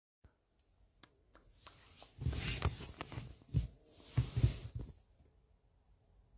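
Handling noise from a handheld phone: rustling and bumping against the microphone as the phone is moved, in irregular bursts from about two seconds in to about five seconds in.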